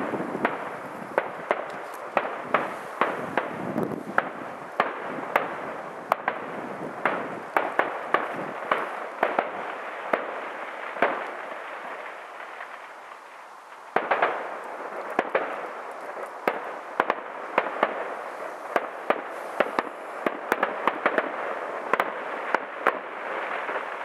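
Fireworks going off: a rapid, irregular series of sharp bangs and cracks over a continuous crackle. The barrage thins out a little past halfway, then starts again abruptly with a loud burst.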